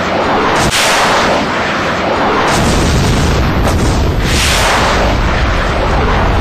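Heavy explosions from a bombardment, a continuous loud blasting and rumbling with no gaps. A deep rumble swells up about two and a half seconds in.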